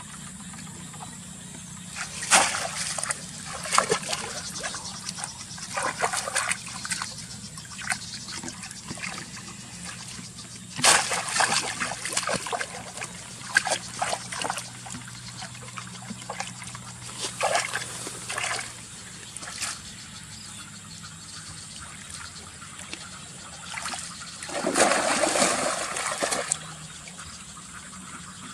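Water splashing and sloshing in irregular bursts, the longest and loudest near the end.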